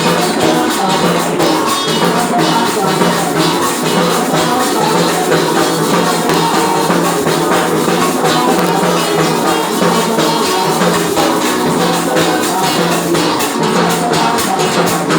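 Music with a steady beat of shaken percussion.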